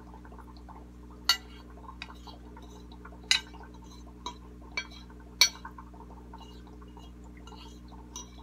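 A metal fork clinking and scraping against a plate as cake crumbs are gathered: a handful of sharp clinks a second or two apart, over a steady low hum.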